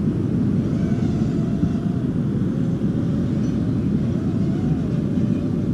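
Strong gusty wind rumbling steadily on the microphone, with a faint thin whine that wavers slowly up and down in pitch.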